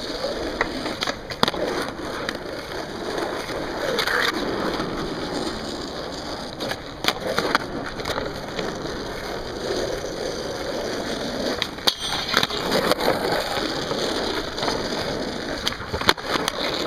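Skateboard wheels rolling steadily over asphalt, broken by several sharp clacks of the board's tail popping and the board landing during tricks.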